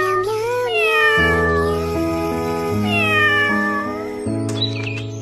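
Kitten meowing, two long arching meows, over background music with sustained chords.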